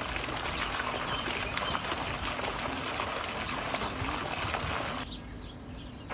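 Steady running water with a few faint bird chirps, dropping abruptly to quieter room sound about five seconds in.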